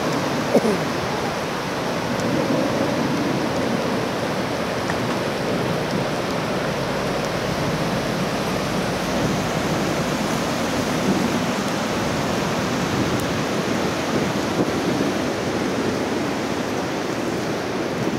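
Floodwater of an overflowing creek rushing steadily past, a constant dense wash of noise. A brief knock sounds about half a second in.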